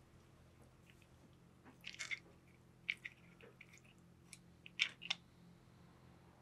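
Quiet eating sounds: a few short, sharp clicks about a second apart as wooden chopsticks pick fish and clams from a ceramic bowl of acqua pazza, with the small mouth sounds of chewing.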